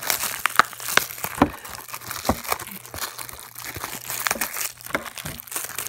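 Plastic shrink wrap on a Blu-ray case crinkling in the hands as it is picked at and peeled off, in irregular sharp crackles.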